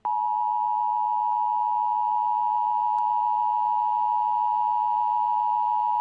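Emergency Alert System attention signal: a steady, loud electronic alert tone near 1 kHz, held without a break, announcing a tornado warning.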